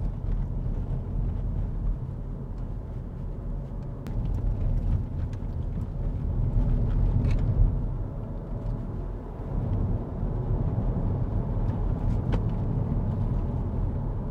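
Car driving along a road, heard from inside the cabin: steady low rumble of engine and tyres that swells and dips, with a few faint knocks.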